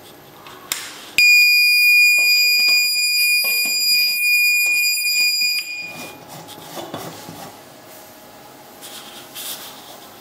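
Signal beacon's built-in buzzer sounding one steady, loud, high-pitched tone for about four and a half seconds. It starts abruptly about a second in, just after a click, and cuts off near the six-second mark. Light rustling of the beacon being handled follows.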